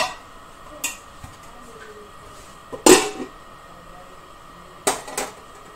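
Metal cookware clanking: a ladle and a steel lid knocking against a metal kadai in a few sharp strikes. The loudest comes about three seconds in with a short ring, as the lid goes onto the pan.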